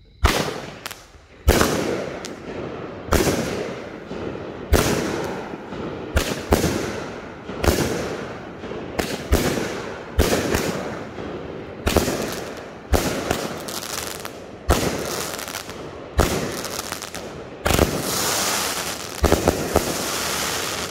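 16-shot 500 g consumer firework cake firing its shots one after another, about one a second. Each shot is a sharp bang that trails off into crackle, and near the end a denser, sustained crackling rings out.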